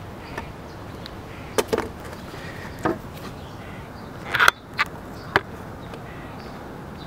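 Eastern box turtle feeding on worms in loose soil on a paving stone: about half a dozen sharp clicks and knocks as its beak snaps shut and hits the soil and stone, the loudest about four and a half seconds in.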